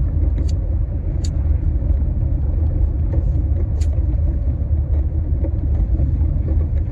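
Steady low rumble of a car driving on a snowy road, heard from inside the cabin. Three short clicks stand out in the first four seconds.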